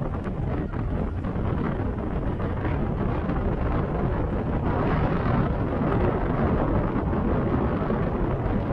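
Strong wind buffeting the microphone: a steady, loud low rumble with a hissing haze above it.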